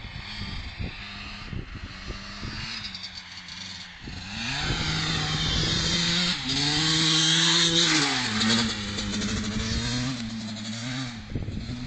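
Two-stroke Husqvarna 250 motocross bike being ridden: its engine grows louder from about four seconds in, the note stepping up and down as the rider works the throttle and gears, is loudest as it passes close, then falls away near the end.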